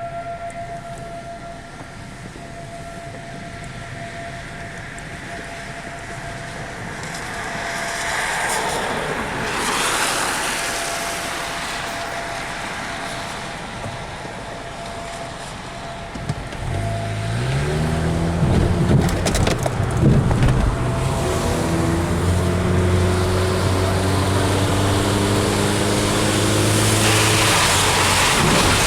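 A faint steady outdoor siren tone fades over the first several seconds while traffic noise swells and passes. About halfway through, a car engine speeds up and settles into a steady drone.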